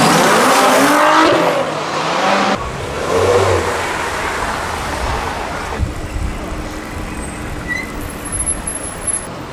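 Performance cars driving slowly past one after another, engines revving. The loudest is in the first two seconds, its engine pitch rising and falling; after a sudden change about two and a half seconds in, a quieter low engine rumble follows.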